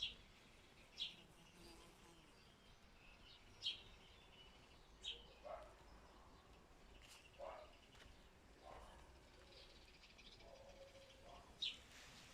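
Faint birdsong in a garden: short, separate high chirps every second or few, with a few lower calls in between.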